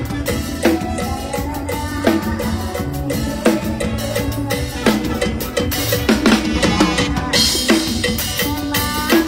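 Drum kit playing a steady beat in live mor lam band music, with other instruments holding pitched notes over it; a cymbal crash comes about seven seconds in.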